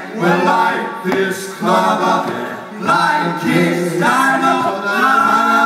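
Four men singing a cappella into hand microphones: several voices in close harmony with no instruments, in held phrases that break and restart about every second.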